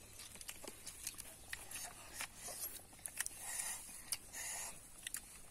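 Faint eating sounds: scattered small clicks and smacks of chewing and of handling peeled cooked eggs on a leaf, with a couple of brief soft rustles a little past the middle.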